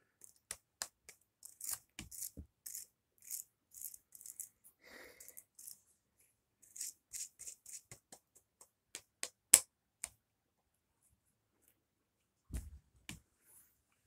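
Scattered clicks, taps and rustles of hands handling a hair dryer's cord close to the microphone, with one sharper click about two-thirds through and a dull thump near the end. The hair dryer itself is not running.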